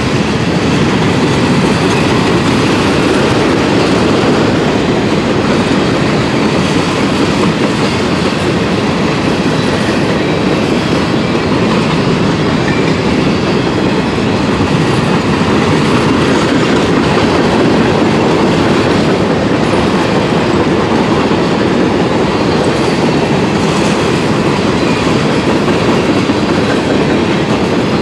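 Freight train of covered hopper cars rolling past, a steady loud rumble and rattle of steel wheels on the rails.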